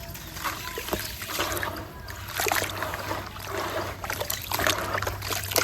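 Small pieces of concrete crumbling and breaking apart in water: dense crackling with small splashes and clicks, swelling and easing in waves about once a second.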